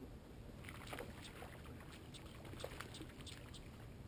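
Faint low wind rumble on the microphone with scattered light clicks and rustles, while a hooked bass is being reeled in.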